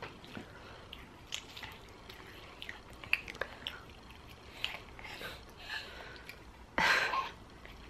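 Faint nibbling and chewing: small clicks and crackles as a baby pet bird eats a bite of pancake. A short, louder noisy burst comes about seven seconds in.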